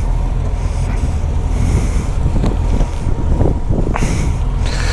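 Wind buffeting the microphone, a steady low rumble, with a few light clicks.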